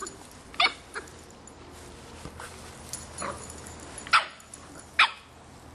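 Boston Terrier puppy barking at a soccer ball in play: about five short, sharp barks at uneven spacing, with a quieter gap of a couple of seconds in the middle.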